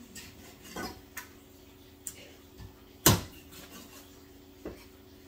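Kitchen counter work: a few separate clicks and knocks of dishes and utensils being handled on the counter and cutting board, with one sharp, loud knock about three seconds in. A faint steady hum runs underneath.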